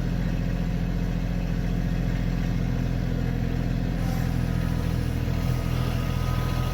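Kioti CK2610 compact tractor's three-cylinder diesel engine running steadily.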